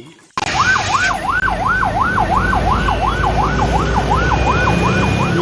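Ambulance siren in a fast yelp, its pitch sweeping up and down about three times a second over a low steady rumble, starting suddenly just after the start.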